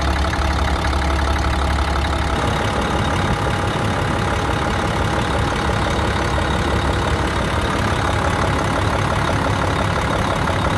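2001 International 4900 truck's diesel engine idling steadily with the hood open. The deep low rumble drops away about two seconds in, leaving an even mid-pitched running sound.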